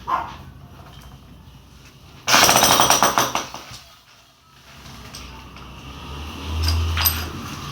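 Jackhammer chipping into a concrete wall in one short burst of rapid hammering, about a second long, starting about two seconds in.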